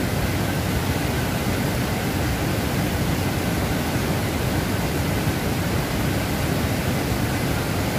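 Waterfall: water falling and rushing in a steady, even hiss.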